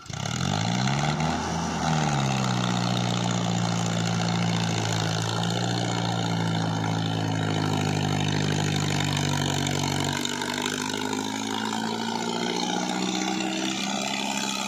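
Mahindra Arjun 555 DI tractor's four-cylinder diesel engine revving up sharply at the start, then settling to a steady, hard-working note under load as it hauls a loaded sand trailer up a steep ramp. The engine note dips slightly about ten seconds in.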